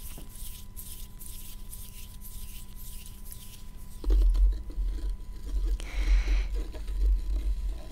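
Soft inaudible whispering, then from about halfway through fingertips tapping and rubbing on a small black case close to the microphone, with heavy low thuds and a brief scratching sound.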